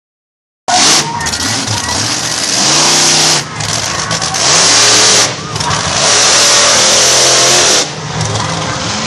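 Monster truck engine revving hard, cutting in suddenly under a second in, with pitch rising and falling and three long stretches at full throttle.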